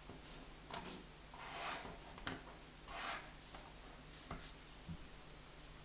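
Fused plastic bead pieces being slid into place and set down on a wooden tabletop: a few faint soft swishes of fingers and pieces sliding over the wood, with light clicks as pieces touch down.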